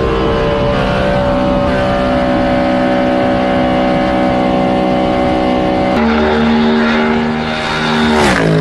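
Race car engine running at high, steady revs. About six seconds in the sound cuts abruptly to another engine note, which swells in loudness and then drops sharply in pitch near the end, as a race car passing by.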